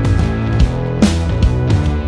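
Background music: a rock-style track with guitar and a steady drum beat.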